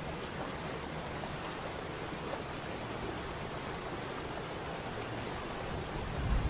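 Waterfall: water falling and rushing in a steady, even roar, with a brief low rumble swelling near the end.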